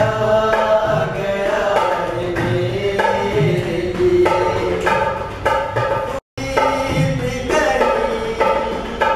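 Indian song: a voice singing over a steady hand-drum beat. The sound cuts out for a moment about six seconds in, then the singing and drumming resume.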